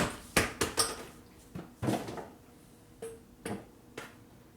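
Metal tools and parts clinking and knocking during work on a motorcycle's front wheel and brake: a quick run of knocks in the first second, then scattered single clinks, some with a short metallic ring.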